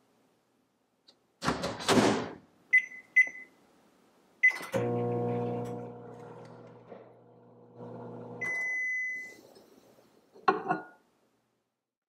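Frigidaire microwave oven in use: the door shuts with a thud, the keypad beeps twice and gives a start beep, then the oven hums steadily while cooking. Near the end a longer beep sounds as the hum stops, followed by a short clunk of the door latch.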